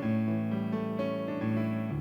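Piano playing an instrumental interlude of sustained chords, with no singing, changing chord right at the start and again about one and a half seconds in.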